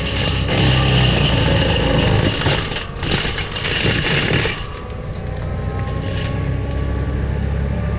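Forestry mulcher under load, its engine running steadily beneath the hiss and crunch of the cutting head grinding honeysuckle brush. About four and a half seconds in the grinding noise drops away and the engine runs on with a lighter whine.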